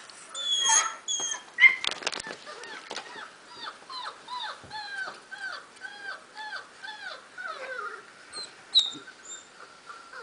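German shepherd puppies whimpering, played back from a video: an even run of short squeals that fall in pitch, about two a second. A few sharp knocks come about two seconds in.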